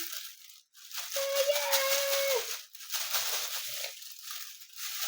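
Plastic bag crinkling and rustling as a soft slime mixture is poured and scraped into it, with a short hummed note about a second in.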